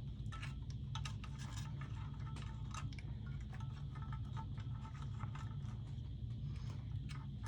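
Scattered light clicks and taps of hands placing artificial succulents into floral foam set in a vintage typewriter, over a steady low hum.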